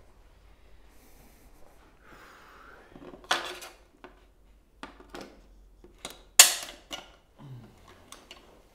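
Metal tools clinking and knocking at a bicycle's press-fit bottom bracket shell while the second bearing is being worked out: a few irregular sharp metallic knocks with brief ringing, the loudest about six and a half seconds in.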